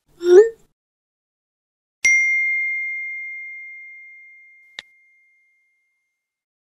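A brief rising 'ooh' from a voice at the start. About two seconds in comes a single bell-like ding: one clear tone that rings out and fades over about three seconds, a phone message notification chime. A short click follows near the end of the ring.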